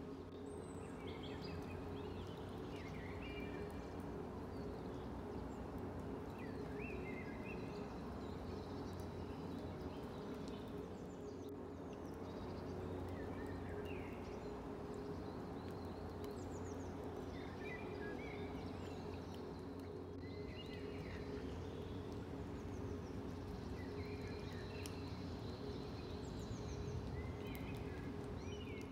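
Songbirds singing short chirpy phrases, one every few seconds, over a steady low background rumble.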